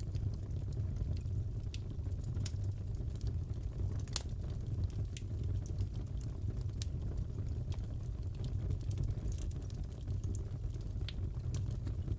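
Wood fire crackling in a fireplace: a steady low rumble with scattered sharp pops and snaps.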